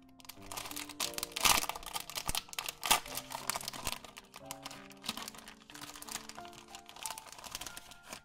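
Clear cellophane sticker packet crinkling as it is pulled open at its top flap, with two loud crackles about a second and a half and three seconds in, then softer crinkling as the stickers are slid out. Background music plays throughout.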